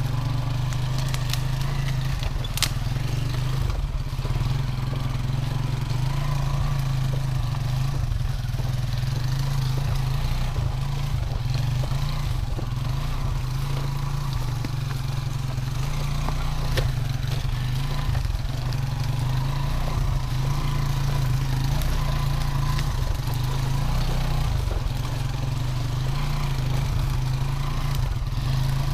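Engine of a homemade two-wheel-drive off-road motorcycle running steadily at low revs as it crawls through thick brush, with a few scattered clicks.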